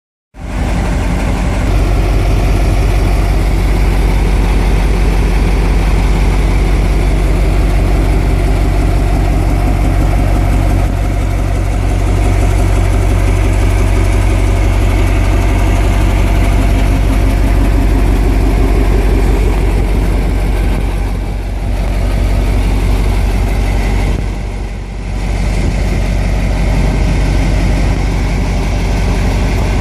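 Scania Chimera truck's diesel engine idling steadily with a deep low rumble, dipping briefly twice near the end.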